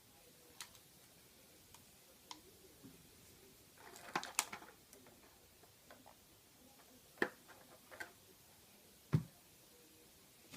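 Faint handling of action-figure packaging: scattered light clicks and taps, a short crackling rustle about four seconds in, two sharper clicks around seven and eight seconds, and a dull thump near the end.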